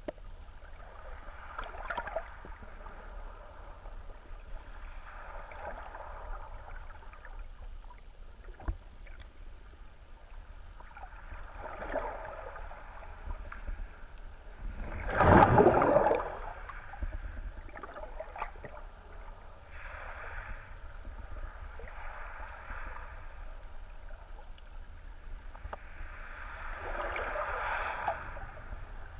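Muffled underwater water noise heard through a GoPro's waterproof housing. Soft surges of water swish past every few seconds over a low rumble, with one much louder whoosh about halfway through and a few faint clicks.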